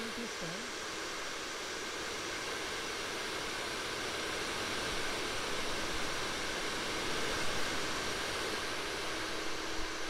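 Salon hair dryer running, blowing a steady rush of air with a faint steady tone under it.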